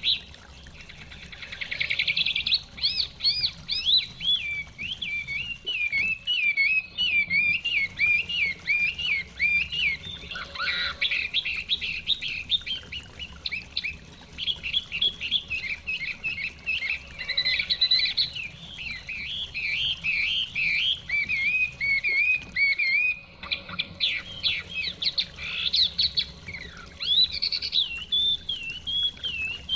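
Chinese hwamei singing a long, varied warbling song of fast notes that slide up and down, with brief pauses a few seconds in and again past the middle.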